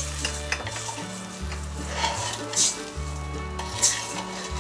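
Soy-sauce braising liquid sizzling and bubbling in a hot, oiled stainless steel pot while a wooden spatula stirs it, with its strokes swishing through the liquid.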